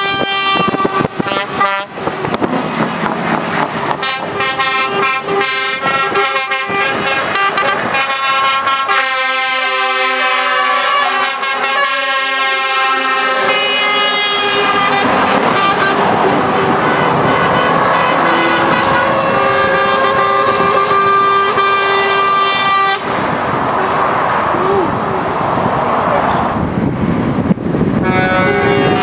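A convoy of lorries passing below, their drivers sounding truck horns almost without a break. Several horns of different pitches overlap and change, over the steady noise of engines and tyres.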